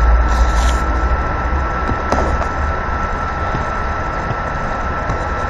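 Steady background noise: a low rumble and hiss with a constant thin high tone, the rumble strongest in the first second or so, and a faint tick about two seconds in.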